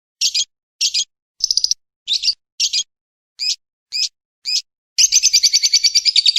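Recorded lovebird and woodpecker calls: eight short, high-pitched chirps about half a second apart, then a fast rattling trill from about five seconds in.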